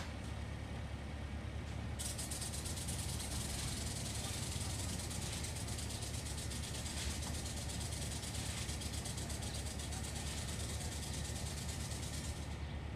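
Construction-site machinery running with a steady low hum. About two seconds in, a rapidly pulsing hiss starts on top of it and stops shortly before the end.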